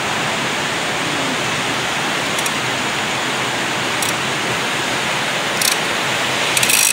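Swift, muddy river rushing over rocks: a steady, loud, even rush of water.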